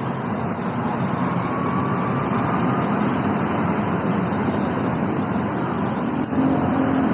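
Steady traffic noise from a busy main road: a constant rush of passing vehicles, with a short sharp click about six seconds in.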